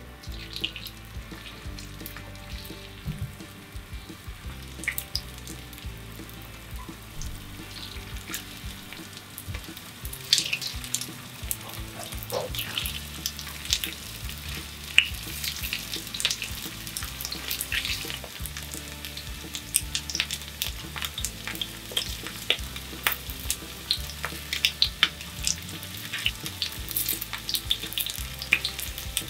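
Starch-coated chicken breast and thick fried tofu cubes shallow-frying in about a centimetre of hot oil in a small frying pan, crackling and spattering, as pieces are added with chopsticks. The crackling grows denser about a third of the way in as the pan fills.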